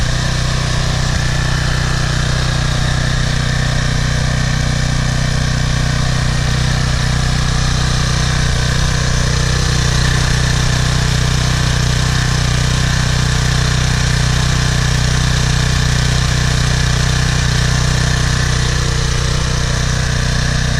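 Briggs & Stratton 190cc single-cylinder engine on a pressure washer running steadily. Its freshly cleaned carburetor now keeps it running well, and the pump runs dry with no water flowing.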